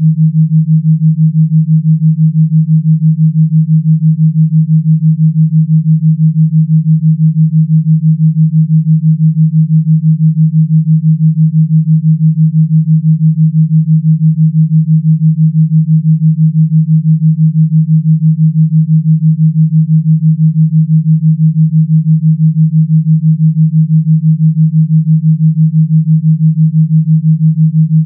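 A single steady, low synthesized pure tone, pulsing rapidly and evenly in loudness: a tone-only gamma-wave track made for brainwave entrainment.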